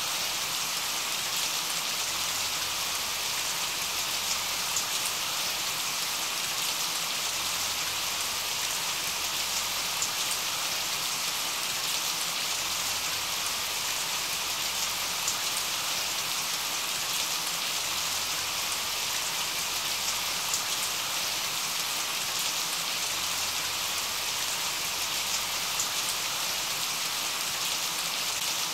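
Steady rain falling: a dense, even hiss with faint scattered drop ticks.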